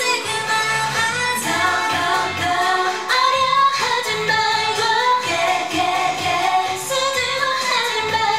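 K-pop dance song with female vocals singing over a steady beat.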